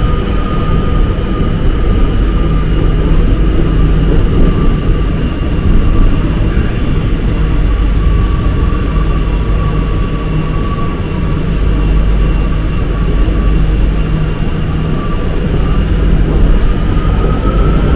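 Subway train running, heard from inside the passenger car: a steady, loud rumble of wheels on the track under a thin electric whine that climbs in pitch near the end.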